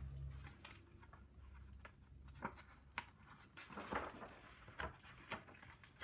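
Faint handling of a picture book: a few scattered light clicks and a brief rustle about four seconds in, as a page is turned.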